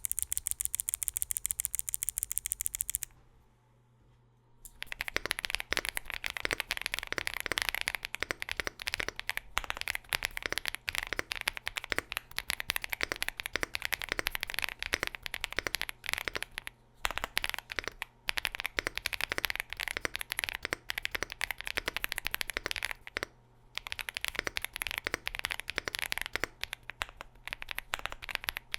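Typing on a WOB Rainy 75 Pro mechanical keyboard with Kailh Cocoa switches, PBT keycaps, an FR4 plate and a gasket-mounted aluminium case. It opens with a very fast, even run of clicks for about three seconds, then after a short pause settles into steady typing with a few brief breaks.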